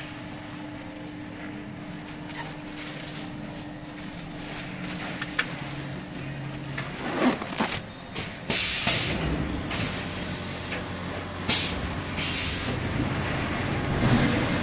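Quilt-rolling packing machine running with a steady hum. From about seven seconds in come several sharp rustles or hisses as the plastic film is fed and the comforter is rolled up inside it, and a heavier rumble builds toward the end.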